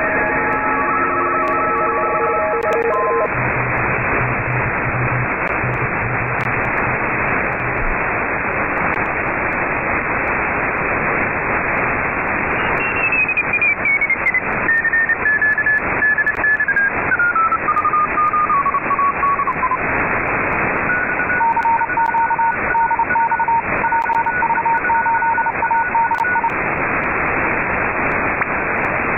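Hiss from a single-sideband receiver (RTL-SDR dongle running SDR#), with several steady whistles from carriers that stop about three seconds in. Midway, one whistle steps down in pitch as the receiver is retuned. Near the end, two tones switch on and off in a keyed pattern.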